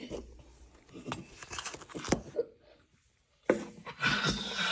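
Light handling sounds: a few scattered clicks and knocks, then a rustling hiss that starts about three and a half seconds in.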